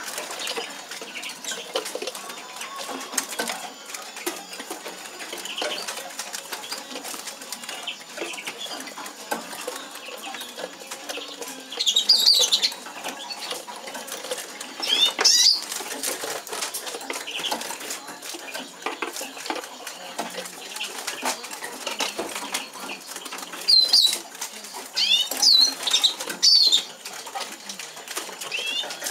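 Caged European siskins fluttering and hopping about their show cages, with short high chirping calls, a few in the middle and a cluster near the end.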